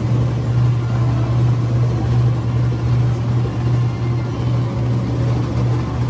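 Mold-A-Rama wax-molding machine running through its cycle: a loud, steady low motor hum with a slight pulsing, as the two mold halves part to release a freshly molded red wax pumpkin.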